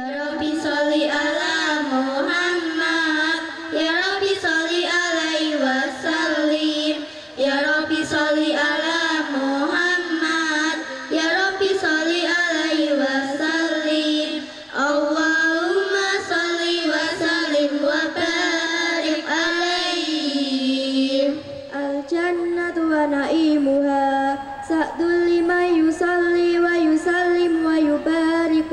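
A group of girls singing an Arabic devotional chant in unison into microphones: one wavering, ornamented melody line, with brief pauses for breath a few times.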